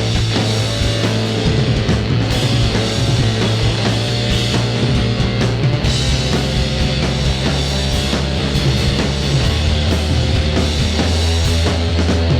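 Rock band playing live: an instrumental passage with long held low bass notes that step to a new pitch about two-thirds of the way in, under steady drum hits.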